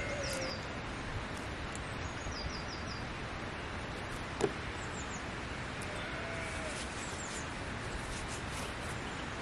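Small birds chirping in quick runs of short, high, falling notes, with a longer whistled bird note about six seconds in, over a steady background hiss. A single short knock sounds about four and a half seconds in.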